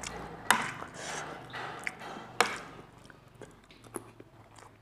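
Metal fork clinking against a ceramic plate of food, two sharp clinks about two seconds apart, then quieter chewing with a few small clicks.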